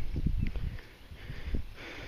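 Low rumbling noise on the phone microphone, loudest in the first half-second, with a few faint clicks.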